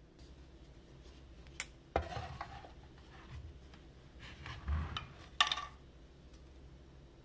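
A few scattered knocks and clinks of hard objects being handled: a sharp click about one and a half seconds in, a knock at two seconds, some duller thuds, then a louder clatter about five and a half seconds in.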